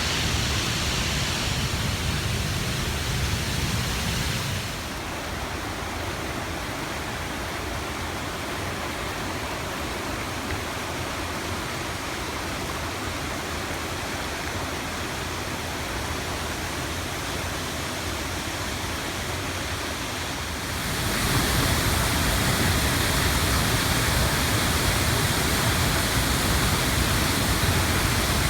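Waterfall: a steady rush of falling water, dropping a little in level about five seconds in and coming back up about three quarters of the way through.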